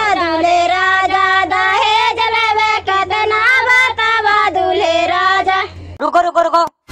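A group of high-voiced cartoon girls singing a Bhojpuri wedding folk song in unison over a steady low hum. The singing stops about six seconds in, leaving a few short broken vocal snippets.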